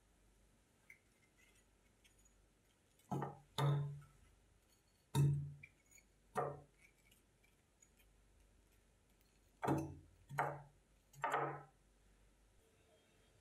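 Cubes of watermelon dropped one by one into an empty plastic blender cup: seven soft thuds. Two come close together about three seconds in, then two single ones, then three in quick succession near the end.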